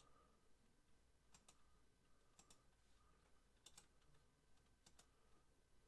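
Near silence broken by four faint double clicks about a second apart: clicking at a computer.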